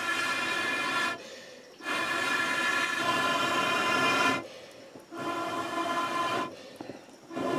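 Blowing through a bamboo blowpipe into a wood fire to fan the embers up: long breathy blows with a hollow, pitched hooting tone, separated by short pauses for breath, and a fresh blow starting near the end.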